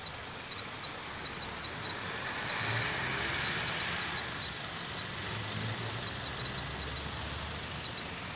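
Road traffic: a vehicle passes with tyre noise swelling about three seconds in, followed by a low engine rumble from trucks on the road.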